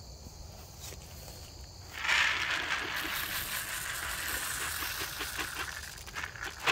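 Rustling and rattling of a bag of corn being handled and emptied out for deer bait. It starts about two seconds in and runs about four seconds as a hiss full of small ticks.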